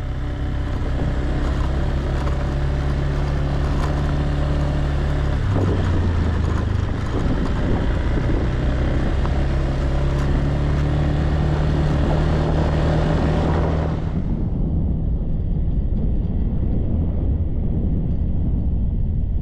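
Motorbike engine running steadily while riding along a dirt track, its pitch shifting once about five seconds in. About three-quarters of the way through, the hiss above the engine drops away suddenly and the engine continues duller.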